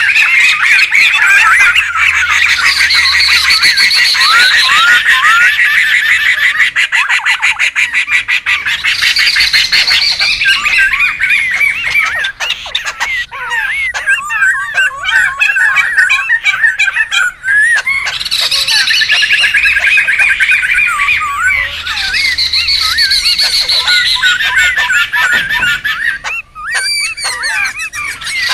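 Several laughingthrushes (poksay) calling noisily over one another: a dense, continuous chatter of squawking, chuckling phrases that swells and thins in waves.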